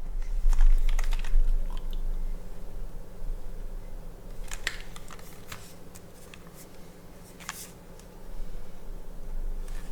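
Keystrokes on a CW60 gasket-mount mechanical keyboard with Gateron Raw switches, a polycarbonate plate and GMK keycaps, with no foam. Keys are pressed singly and in small clusters, each a short clack, over a steady low hum.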